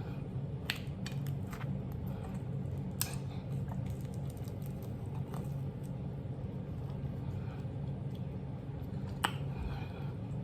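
Close-up eating: soft chewing with several sharp clicks of a fork against the plate, over the steady low hum of a central air-conditioning unit.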